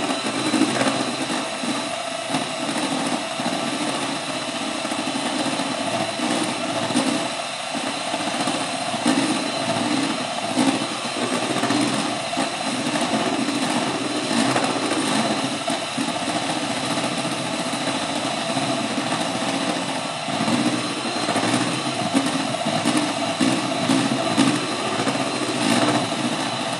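Handheld electric two-beater mixer running steadily, its beaters whisking egg whites and sugar syrup into a marshmallow meringue in a stainless steel pot.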